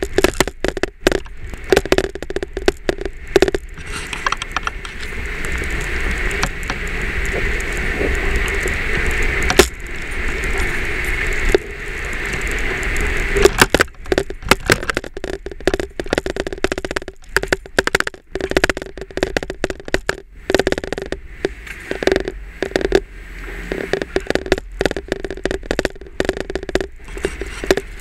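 A dashboard camera chattering and tapping against a Jeep's front windshield as it jolts over rough ground, over the low rumble of the Jeep driving. Through the middle stretch the tapping thins and a steadier hiss takes over, then the rapid chattering returns.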